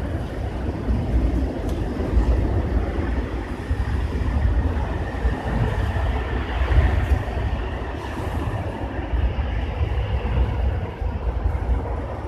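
A steady low rumble of outdoor background noise that rises and falls unevenly throughout.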